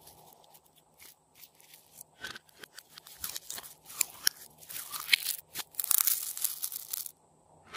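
Glossy purple glitter slime being squeezed by hand and pressed into a plastic jar with a finger, giving quick wet crackles and pops. The crackling grows denser toward the middle and stops shortly before the end.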